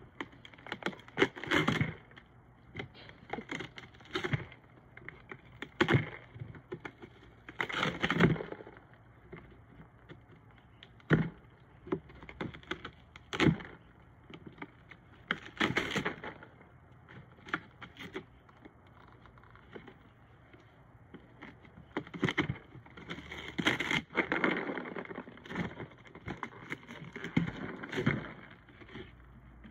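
Cardboard box being torn and rustled by a husky digging its kibble out: irregular cracking, crinkling and tearing of cardboard, with kibble rattling inside. The sounds come in bursts every second or two, with short quiet spells in between.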